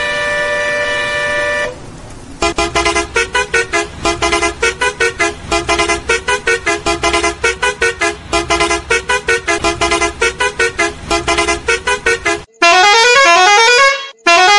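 Multi-tone vehicle horn, loud: one held blast, then about ten seconds of rapid pulsing notes that alternate between pitches, then a sweep of rising and falling tones near the end and a short final blast before it cuts off.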